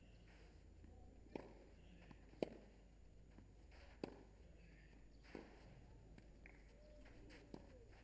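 Tennis ball struck by racquets in a rally: five faint, sharp pops about one to two seconds apart over a low steady hum.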